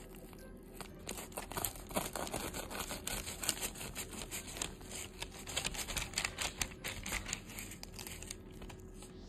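Crisp toasted crust of a grilled cheese sandwich crackling and crunching in rapid, irregular clicks as a pizza cutter is pressed and rolled through it, the crackling dying away near the end.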